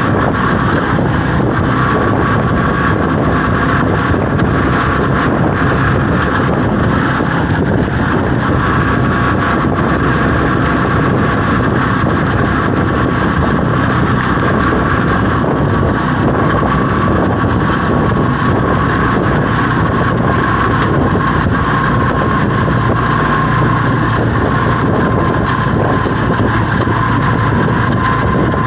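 Steady engine drone and road noise of an open-sided passenger vehicle driving along, heard from on board, with a steady high whine over the top.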